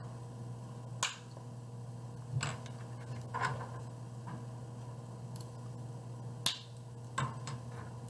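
Plastic pieces of a DIY Rubik's cube kit snapping into place as they are pressed together: about five sharp clicks at uneven intervals, the loudest about a second in and again past six seconds. A steady low hum runs underneath.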